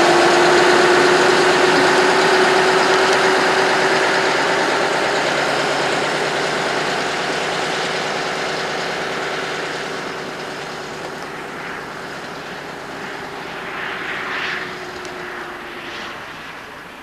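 Heavy truck with a drawbar trailer driving away after passing close by, its engine drone and road noise fading steadily as it recedes.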